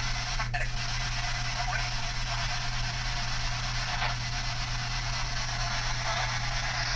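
PSB7 Spirit Box sweeping through radio stations: a steady hiss of radio static over a low hum, with a click about half a second in. Near the start there is a brief fragment of a radio voice, which the uploader hears as a man saying "pathetic".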